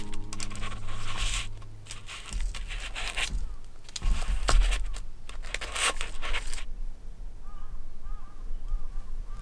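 Crisp toasted crust of a hot sandwich crackling and tearing as it is pulled apart by hand, with parchment paper rustling under it. This runs in bursts for about six and a half seconds, with one louder bump near the middle. After that a bird calls briefly several times.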